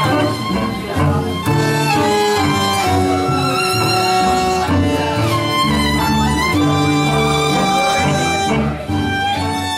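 Live tango music from a small ensemble: a violin leads with vibrato over a bandoneon, a plucked upright double bass and an acoustic guitar.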